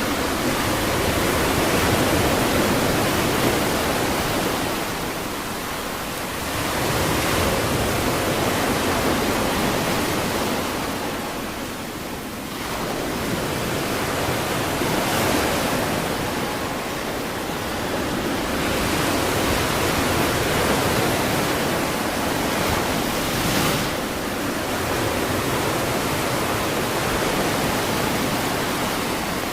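Ocean surf on a beach: a continuous wash of waves that swells and eases every five to six seconds.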